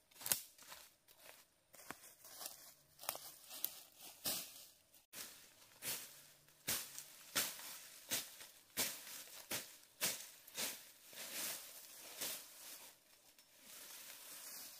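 Dry vegetation crunching and rustling in a steady series of crisp strokes, about one and a half a second, easing into a fainter rustle near the end.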